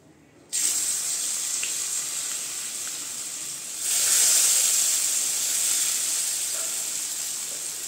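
Hot mustard oil in a kadai sizzling as washed joha rice is dropped in, a handful first and then the rest tipped from a bowl about four seconds in, when the sizzling gets louder.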